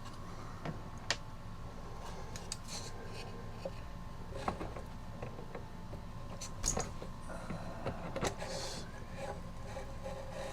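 Scattered light clicks, taps and soft rubbing from handling small parts while a music box is fitted into a cuckoo clock, over a faint steady hum.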